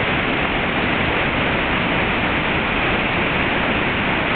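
Waterfall pouring with a steady, even rush of falling water.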